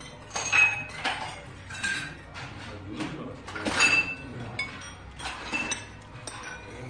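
Metal chopsticks and spoon clinking against ceramic side-dish bowls and plates during a meal: a scattered series of sharp clinks, some with a brief ring, the loudest about half a second in and again near four seconds.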